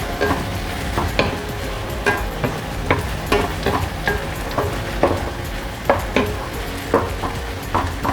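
Minced beef, pepper and onion sizzling in a non-stick frying pan while being stirred and broken up, with sharp knocks and scrapes of the utensil against the pan roughly once or twice a second.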